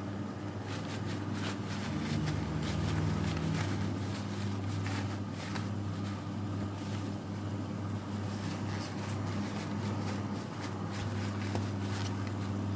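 Paper towel rustling and crinkling in short, irregular bursts as raw chicken wings are patted dry in a plastic bowl, over a steady low hum.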